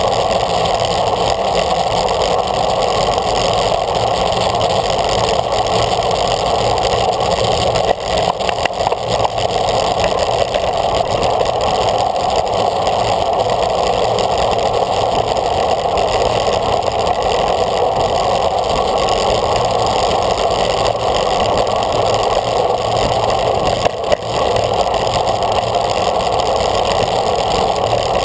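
Steady rushing wind and road noise on a bicycle-mounted camera riding at race speed in a bunch of road cyclists, easing briefly twice.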